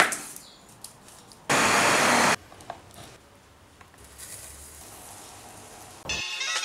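Kitchen sounds: a sharp knife click on a wooden cutting board at the start, then a loud burst of steady rushing noise for just under a second and a few light ticks. Music begins just before the end.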